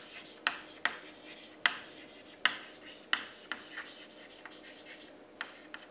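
Chalk writing on a chalkboard: irregular sharp taps as the chalk meets the board, with short scratchy strokes between them.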